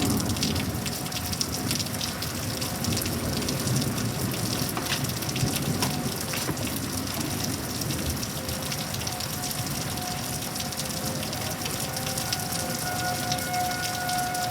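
Steady rain from a severe thunderstorm falling and pattering on surfaces. A faint steady tone sits under it and grows a little stronger near the end.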